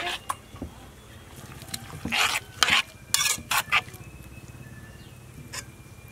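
Metal spoon stirring liquid in a stainless-steel pot of sliced lemongrass and chili, with a cluster of scraping clinks against the pot about two to four seconds in.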